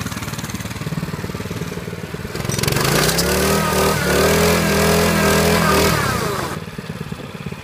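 Small engine of an old minibike running low, then revving up for about four seconds as the rear wheel spins in the dirt in a burnout, then dropping back to a low run near the end.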